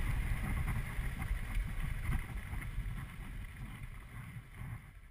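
Honda CBR250R's single-cylinder engine running at low speed, with wind rumbling on the camera microphone; the sound fades away over the last couple of seconds.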